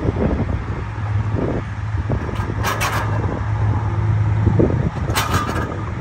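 Ladder truck's engine running steadily. Wind buffets the microphone, and there are two brief hissing bursts, about two and a half seconds and five seconds in.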